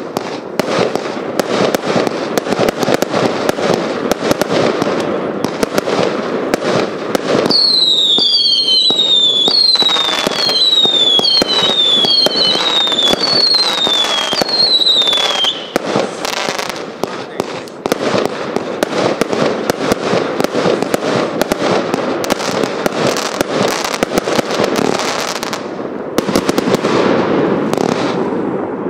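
Hallmark Fireworks' Vanquish multi-shot firework firing a dense run of shots, bangs and crackling. Partway through comes a string of about seven whistles, each falling in pitch.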